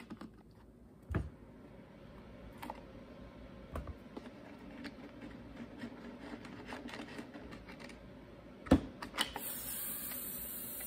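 Clicks and knocks of hand tools and plastic parts as the air filter cover and carburetor are taken off a Husqvarna 150BT backpack blower, the loudest knock near the end. Right after it a steady high hiss starts: a total hissing sound, which the mechanic guesses comes from the gas tank.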